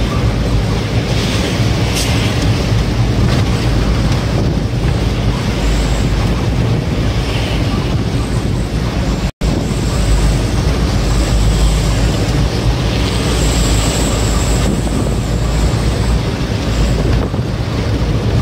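Mitsubishi Canter truck driving, heard from inside the cab: a steady low engine rumble mixed with road and wind noise. The sound cuts out for an instant about nine seconds in.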